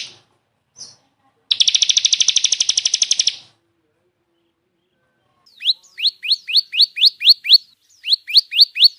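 Songbird calls: a fast, high chattering trill of about ten notes a second lasting about two seconds, then after a pause a run of quick rising whistled notes, about four a second, that breaks off briefly and starts again near the end.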